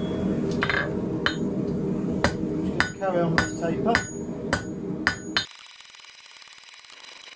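Hammer striking a red-hot steel round bar on an anvil to draw out a taper: about seven ringing blows a little over half a second apart, over the steady roar of a propane gas forge. The roar and the hammering stop abruptly about five and a half seconds in.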